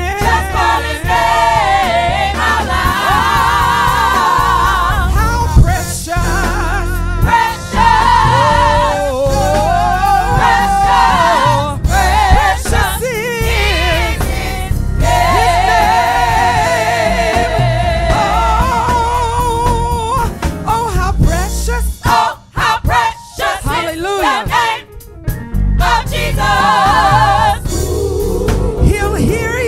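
Gospel choir singing over a steady bass line. The music thins out with short gaps a little past two-thirds of the way through.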